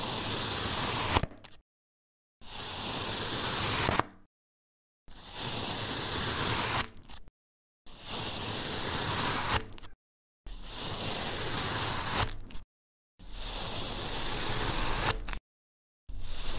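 Large knife slicing down through a packed block of sand, a steady hissing scrape with each stroke. About six slices, each roughly two seconds long, are separated by abrupt dead silence, and a seventh begins near the end.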